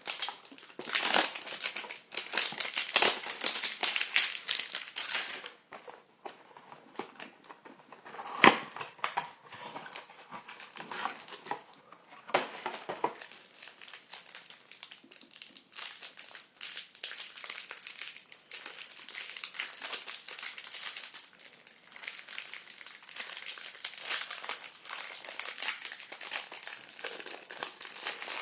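Trading-card hanger box and pack wrapper being opened: plastic crinkling and cardboard handling, with cards being shuffled. One sharp snap stands out about eight and a half seconds in.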